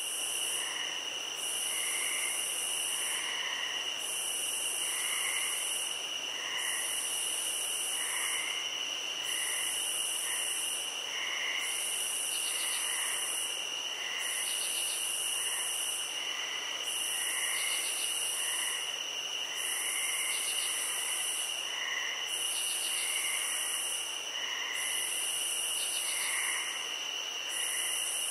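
Insect chorus: a high trill that pulses on and off about once a second over a steady high-pitched buzz, with soft short chirps scattered through it.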